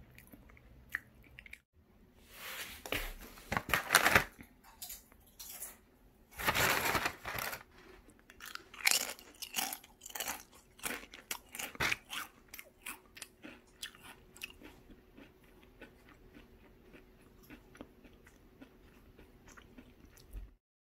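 Crinkling and crunching from a bag of Lotte Air Baked potato chips and its thick, crispy chips. It is loudest in two stretches in the first eight seconds, then a run of short crisp cracks thins out toward the end.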